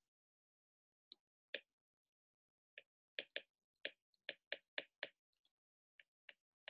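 Faint, short clicks of a stylus tapping on a tablet's writing surface as digits are handwritten, about fifteen taps in irregular clusters starting about a second in.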